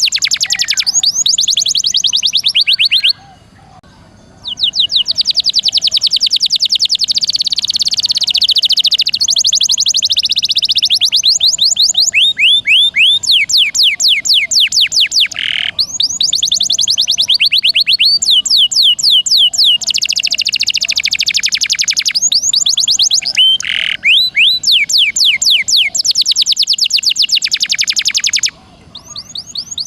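Domestic canary singing, fast rolling trills of high sweeping notes in long phrases, with short breaks about three seconds in and near the end.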